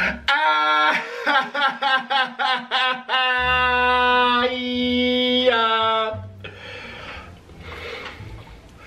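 A short musical phrase, sung or played: a quick run of short notes, then one long held note that stops about six seconds in, leaving softer, rustling sound.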